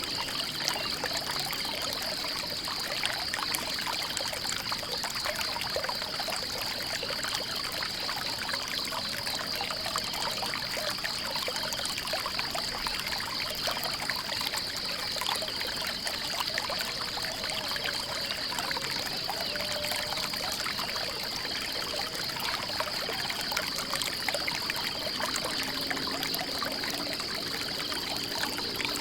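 Water trickling and flowing steadily, as from a small stream, with a steady high-pitched pulsing buzz running over it.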